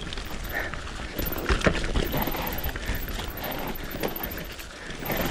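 Mountain bike descending a muddy trail: a rapid, irregular run of knocks and rattles from the bike over rough ground and tyres through mud, with a steady rumble of wind on the microphone.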